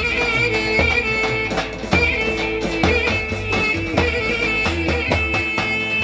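Live Roman havası dance music: a clarinet playing a fast, ornamented melody over a steady drum beat and a low bass line.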